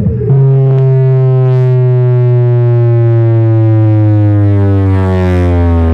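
Car audio system's subwoofers blasting a loud, sustained bass test tone that slowly falls in pitch, buzzy with overtones, during a sound-pressure-level measurement run. It starts sharply about a third of a second in.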